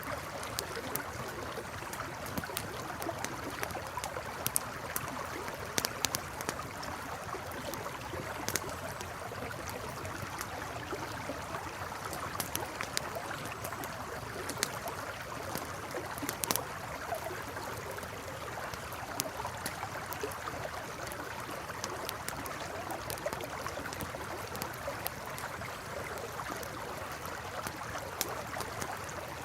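River flowing steadily beside a crackling campfire, with sharp pops and snaps of burning wood scattered throughout over the even rush of the water.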